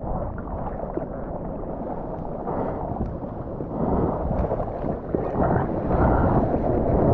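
Ocean water sloshing and rushing around a mouth-mounted GoPro in the surf, with wind on the microphone. It gets louder over the last couple of seconds.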